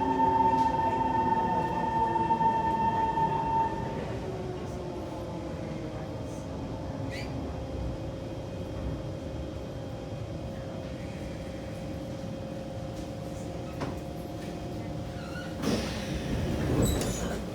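Kawasaki C151 electric metro train heard from inside the car: several steady whining tones and running noise stop about four seconds in, leaving a quieter steady electrical hum. A short burst of clattering comes near the end.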